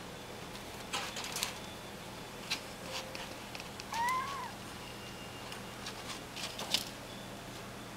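Kitten climbing the wire walls of a pet cage and dropping down, rattling the wire in short clattery bursts, with one short rising-and-falling kitten meow about four seconds in.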